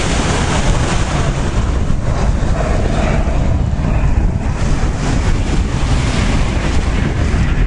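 Steady jet engine noise from a formation of four small jets flying past, mixed with heavy wind rumble on the microphone.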